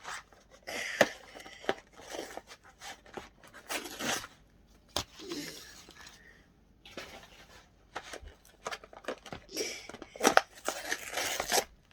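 Plastic packaging being handled and torn open: crinkling and tearing in short irregular bursts, with scattered clicks and knocks.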